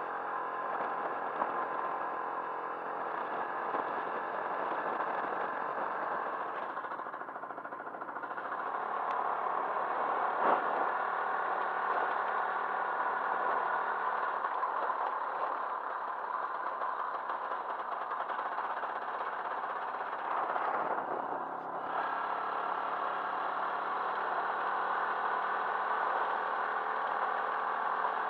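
Motorcycle engine running steadily while riding at road speed on a snowy road, its sound easing briefly twice, about a quarter and three quarters of the way through.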